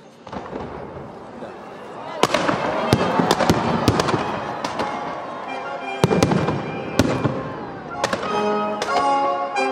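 Fireworks going off: a steady hiss and crackle with many sharp bangs and pops, building up about two seconds in. Music comes in near the end.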